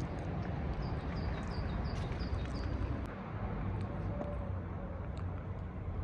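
Outdoor background: a steady low rumble with a small bird chirping in a quick run of short high notes, about four a second, through the first half.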